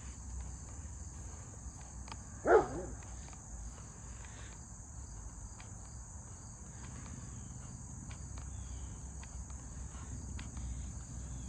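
Steady high-pitched drone of insects. A short, loud pitched sound cuts in about two and a half seconds in.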